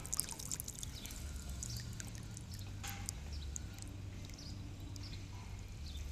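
Small splashes and drips of pond water with scattered light clicks, over a steady low rumble.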